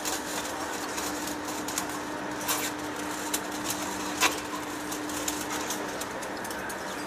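Heavy-duty lathe cutting a large metal workpiece, running with a steady hum and cutting hiss. A few sharp clicks come through, the clearest about two and a half and four seconds in, as the curling chips break and fall.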